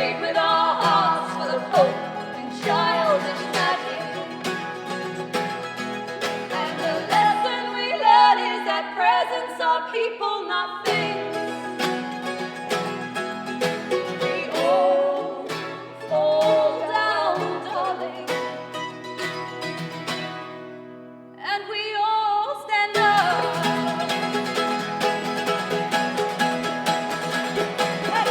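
Live acoustic band music: strummed acoustic guitars with sung vocals. About three-quarters through, the music drops away almost to a pause, then comes back in full.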